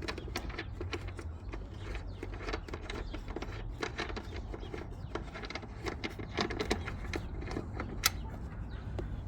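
Small irregular metallic clicks and light rattling as a loosened nut is worked off a car seat belt anchor bolt, over a steady low hum.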